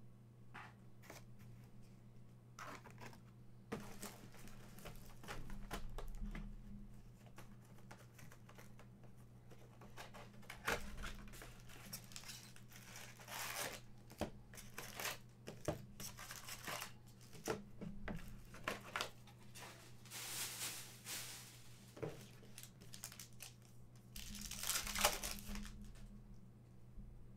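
Trading card packs being torn open and their wrappers crinkled, with scattered clicks and rustles of cards being handled. The longest and loudest tearing comes near the end.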